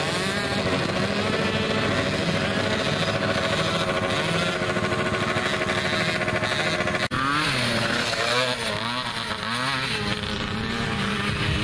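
Mini quad (youth ATV) engines running steadily. About seven seconds in the sound cuts, and a small quad engine's pitch then rises and falls again and again as the throttle is opened and eased off while riding.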